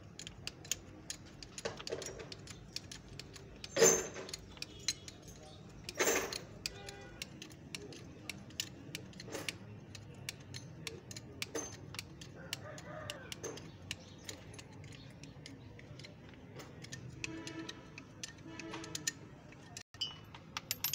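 Steel lifting chain clinking and rattling as its links are handled and looped around an engine block, with a couple of louder metal knocks about 4 and 6 seconds in.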